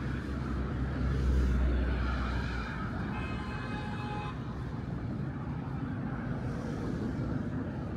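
City street traffic with steady road noise. A heavy vehicle's low engine rumble fades out after about two and a half seconds, and a brief high-pitched tone lasting about a second comes in around the middle.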